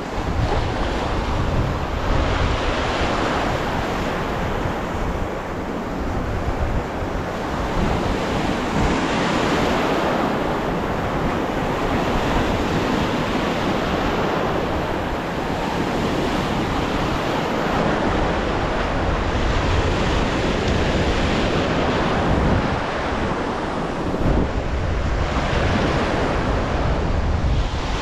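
Sea surf breaking and washing in the shallows right at the microphone, swelling and easing every few seconds, with wind rumbling on the microphone.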